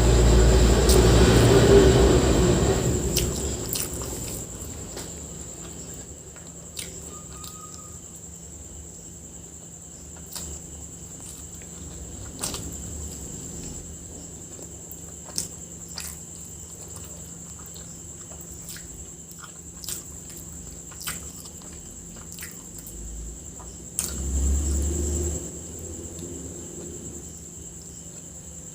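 Close-up eating sounds: chewing and scattered small clicks and smacks of a person eating biryani. A loud low rumble runs through the first few seconds and returns briefly about 24 seconds in.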